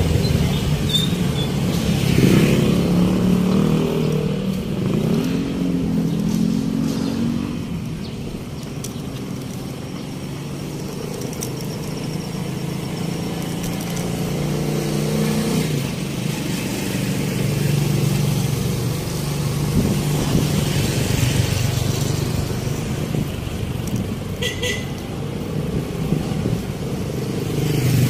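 Street traffic: car and motorcycle engines running and revving as vehicles pass, with a short high-pitched beep about three-quarters of the way through.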